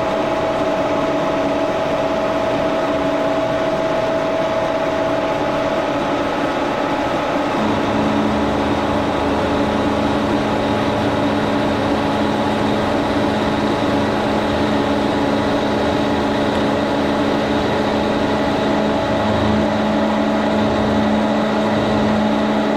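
1942 Brown & Sharpe No. 2 plain milling machine running under power, a steady mechanical hum and whine as it mills aluminum. About seven seconds in, a lower steady tone joins and the sound grows fuller.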